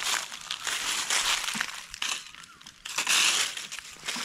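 Dry leaf litter crunching and rustling underfoot and under a metal detector coil sweeping over it, in uneven swells with a short lull a little after two seconds in.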